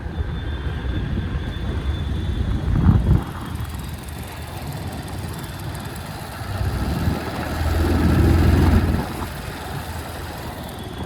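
Bajaj Pulsar NS125's single-cylinder engine running, getting louder briefly about three seconds in and again for longer around eight seconds. It carries a light 'kit kit kit' ticking that the owner takes for tappet noise, still not cured by a tappet replacement.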